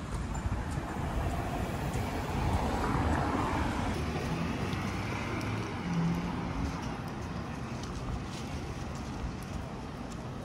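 Outdoor ambience of road traffic: a steady wash of noise that swells about three seconds in.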